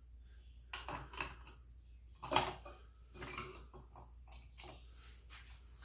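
Small steel head bolts and a hand tool clinking and clicking as the cylinder head bolts come off an old Craftsman air compressor, in scattered irregular knocks, the loudest about two and a half seconds in.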